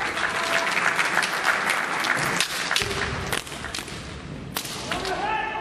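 Kendo bout in a large hall: a spell of clapping for the first two seconds or so, then a few sharp knocks of bamboo shinai and stamping feet, and a fighter's shout (kiai) near the end.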